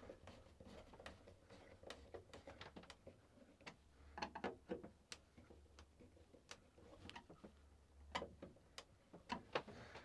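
Faint, irregular small clicks and ticks of a hand screwdriver turning the mounting screws of a VHF radio, tightened only lightly.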